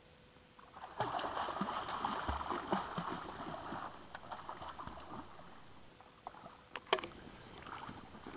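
Pool water splashing and churning as a small child kicks his legs while swimming, strongest for a few seconds starting about a second in, then thinning to light splashes with a few sharp taps near the end.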